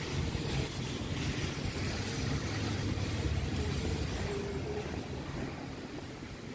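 Steady low rumble and hiss of background noise, with a faint hum.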